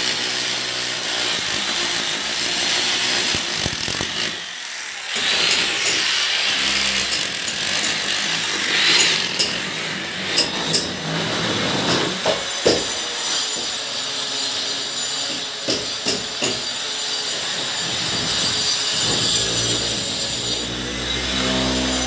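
A power tool cutting into a brick wall, running continuously with a harsh grinding noise and a few sharp knocks partway through, as a groove is cut for electrical conduit. A low hum comes in near the end.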